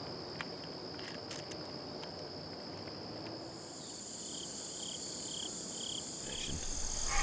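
Insects trilling: a steady high trill, joined about three and a half seconds in by a second, higher trill, and from about four seconds a run of five short, evenly spaced chirps.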